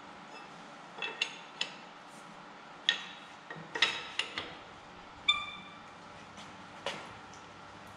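Irregular sharp metallic clinks, a few with a brief ring, from metal tools and wheel bolts being handled at a car wheel during a tyre change.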